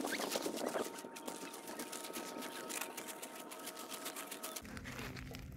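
Footsteps crunching on a pebble beach, a dense run of small irregular clicks.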